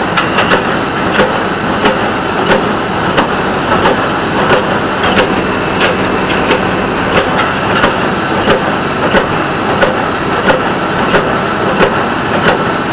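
Small square hay baler working behind a three-cylinder tractor. The baler's plunger knocks evenly about one and a half times a second over the steady drone of the tractor engine.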